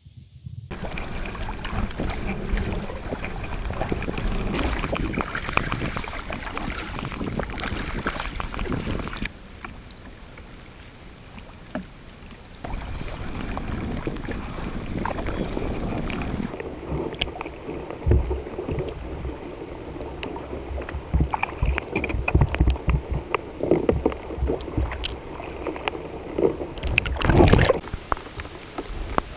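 Rain and strong wind on open water around a kayak, with water sloshing against the boat. Steady heavy hiss for the first nine seconds or so. Later the wind buffets the microphone in low thumps, with a loud gust near the end.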